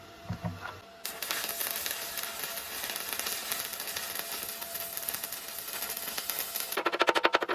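Electric arc welding on the boiler's steel: a steady sizzling crackle that starts about a second in, after a dull knock. It changes near the end to a rapid, even pulsing crackle.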